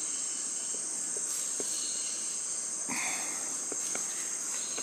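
Rainforest insect chorus: a steady, high-pitched continuous drone of many insects, with a few faint ticks.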